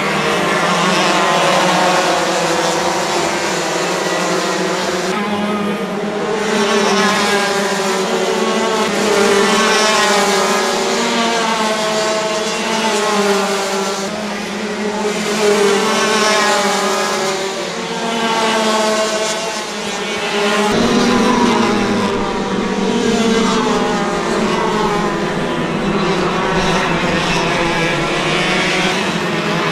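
Several go-kart engines running together on the track, their pitch repeatedly rising and falling as the karts accelerate and slow.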